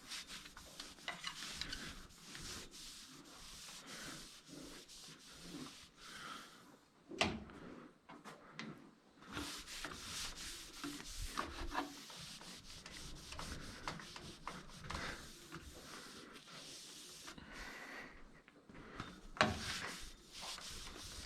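A cloth rubbing and scrubbing along pipes, wiping them down with hot soapy water. There are two sharper knocks, one about a third of the way in and one near the end.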